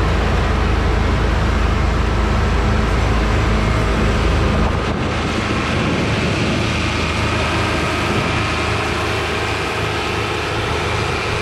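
New Holland TR89 combine running steadily while harvesting oats, a continuous loud machine drone. About five seconds in, the deepest part of the hum eases off.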